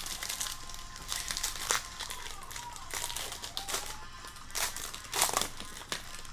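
Foil wrapper of a jumbo baseball card pack crinkling as it is handled and torn open, with a few sharper crackles along the way.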